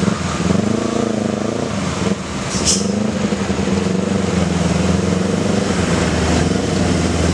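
Diesel engine of a Mitsubishi box truck running steadily at low speed as it creeps past close by. Smaller motorcycle engines pass as well, their pitch wavering in the first couple of seconds.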